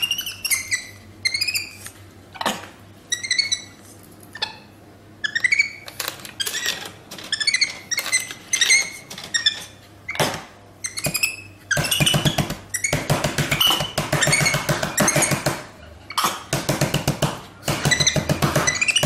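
Capuchin monkey giving repeated short, high squeaky chirps, then from a little past halfway a fast run of pulsed chattering calls. Sharp taps and clicks of its hands on the vending machine's plastic buttons come in between.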